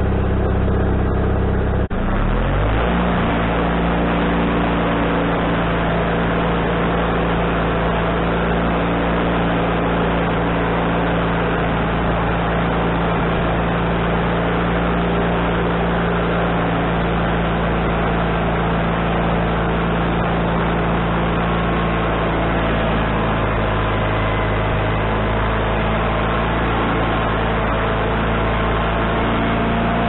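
Wood-Mizer LT40HD band sawmill's engine and blade running loud and steady. About two seconds in, the engine note rises abruptly and then holds at the higher speed as the head moves along the log through a cut.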